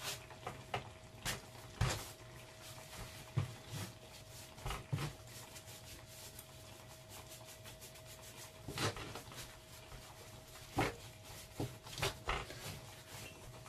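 Hands rolling and patting yeast bread dough on a floured baking mat: soft rubbing with irregular light taps and knocks, two louder ones near 9 and 11 seconds in. A faint steady hum runs underneath.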